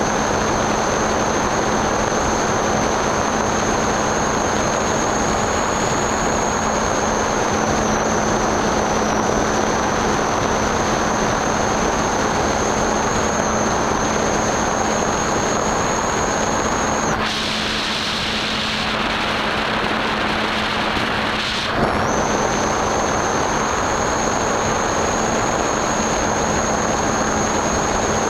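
Airflow rushing past a Skyhunter RC plane in flight, recorded from its onboard camera, with a steady high whine from its electric motor and a low hum. The whine stops for about four seconds past the middle, then comes back with a short click.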